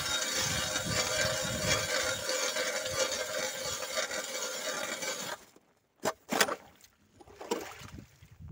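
Ice auger boring through pond ice: a steady grinding scrape of the cutting blades in the ice, which cuts off abruptly a little after five seconds in, once the hole is through. Two sharp knocks follow about a second later.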